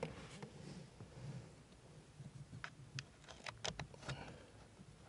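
Faint clicks and light scraping of hands working at the plastic blower motor housing under the dash, with a quick cluster of sharp clicks past the middle.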